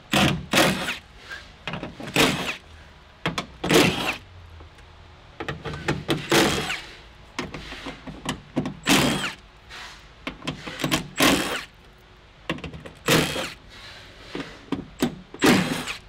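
Cordless electric ratchet spinning out the 10 mm bolts around a Nissan 350Z door's window regulator plate, one bolt at a time: about eight short runs of the motor, every couple of seconds, with short pauses between them.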